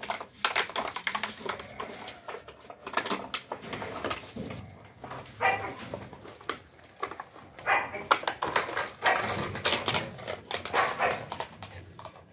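A litter of ten-week-old Belgian Malinois puppies playing rough, with short yips and growls among quick clicks and scrapes of scuffling.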